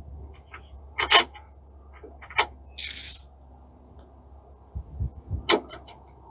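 Small metal clicks and clinks of carriage bolts and nuts being handled and fitted into a steel roll-cage bracket by hand: a few separate sharp ticks, the loudest about a second in, with a short rustle about three seconds in.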